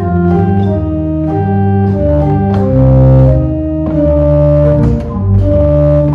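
1842 Eduard Meyer pipe organ playing a moving bass line on the pedals, with the Subbass, Oktavbass and a 4-foot pedal stop drawn together. A series of held notes with strong bass, changing pitch note by note.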